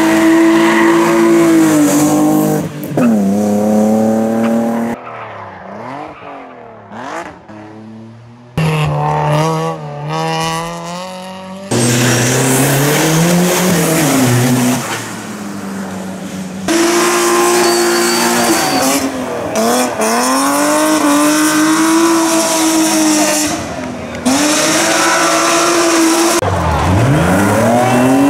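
Hillclimb race cars, BMW 3 Series saloons among them, driven hard through hairpins: engines revving up and dropping back over and over, with tyre squeal as the cars slide. The sound changes abruptly several times where one clip cuts to the next, and it is quieter for a few seconds about a third of the way in.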